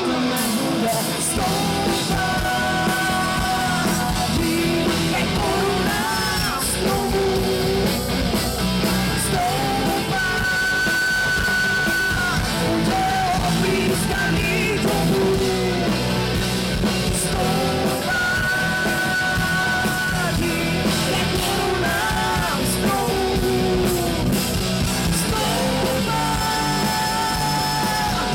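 Live rock band playing electric guitar, bass guitar and drum kit, with a woman singing long held notes into a microphone.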